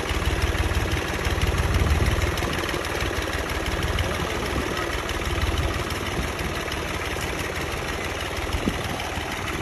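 Farm tractor's diesel engine running steadily as it drives off, growing slightly quieter after a couple of seconds, with a single short click near the end.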